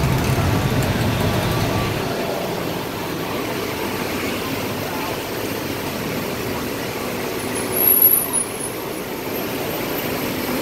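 Busy city street ambience: road traffic and a murmur of voices. A vehicle engine rumbles close by for the first two seconds, and about eight seconds in there is a brief louder sound with a high squeak.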